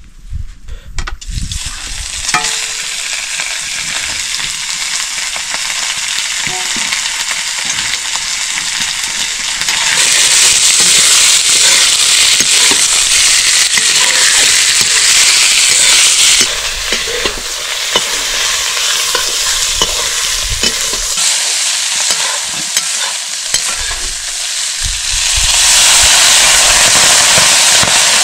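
Spices being tempered in hot oil, sizzling and crackling steadily in a pan while being stirred, with scattered scraping clicks. The sizzle grows louder about ten seconds in, eases a little around sixteen seconds, and swells again near the end.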